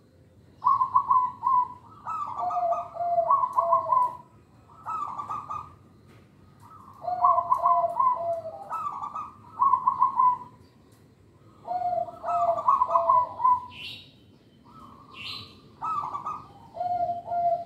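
Zebra dove (perkutut) cooing in repeated short phrases, roughly one every two seconds with brief pauses between. Each phrase is a quick run of stuttering notes followed by lower, steadier notes.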